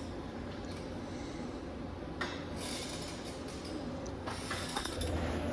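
TIG welding arc on a small turbocharger, a steady buzzing hiss with a low hum under it, broken by a couple of sharp clicks.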